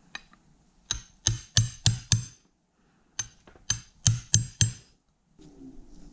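Sharp metal-on-metal taps in two quick runs of five, each tap ringing briefly, as a hand tool strikes at the joint end of a CV axle.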